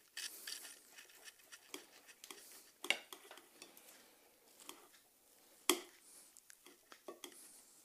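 A knife and metal tongs clicking and scraping against a plate while a cooked venison roast is sliced. There are scattered light clinks, with two sharper ones about three and six seconds in.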